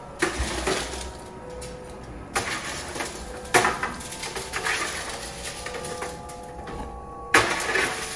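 A utensil scraping baked bread balls across a foil-lined metal baking sheet and tipping them into a pot of boiling water. There are four or five separate scrapes, each starting sharply and fading within about a second.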